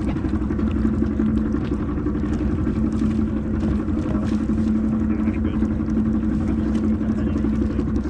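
A sailboat's inboard engine running steadily, a constant low hum.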